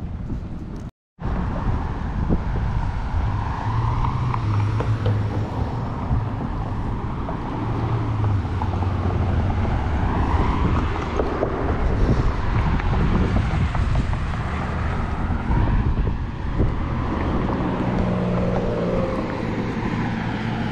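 Street traffic: car engines and tyres going by on the road, with a steady low engine hum and slow swells as vehicles pass. The sound cuts out completely for a moment about a second in.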